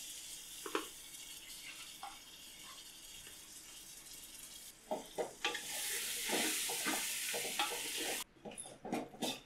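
Spiced jackfruit pieces and yogurt sizzling in an oiled pan while being stirred, the spoon scraping and knocking against the pan. The sizzle grows louder about halfway through and stops suddenly about a second before the end.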